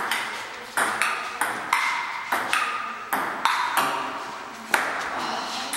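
Table tennis rally: the ball clicking back and forth off the paddles and a wooden table, about two hits a second, each click with a short ring after it.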